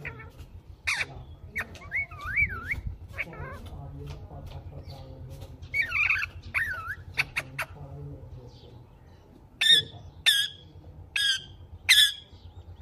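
Rose-ringed (ringneck) parakeet calling: whistled, gliding and warbling notes in the first half, then a run of about five sharp, repeated screeches near the end. A steady low hum runs underneath.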